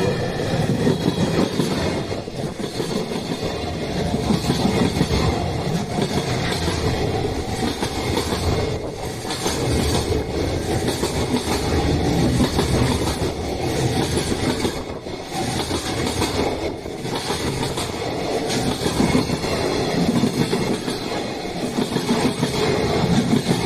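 A train running past at close range: continuous wheel and rail noise that swells and dips every few seconds.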